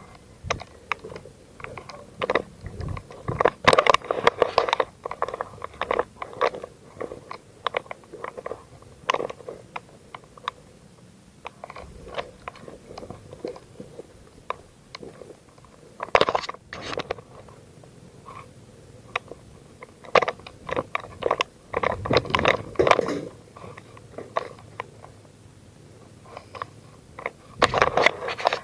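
Irregular crunching and clicking of footsteps on dry leaves and ground litter, with the rifle and gear knocking close to the microphone, in clusters a few seconds apart.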